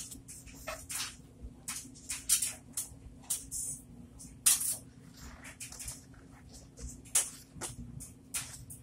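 Soaked sponge squeezed and pressed by a rubber-gloved hand in a bucket of thick soap suds: irregular wet squelches and crackling foam, a few louder squishes along the way.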